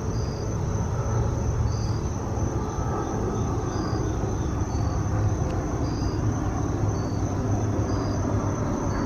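Outdoor ambience: insects calling, a steady high trill with short chirps about once a second, over a steady low rumble.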